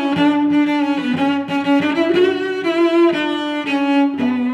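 Background music: bowed strings playing a melody.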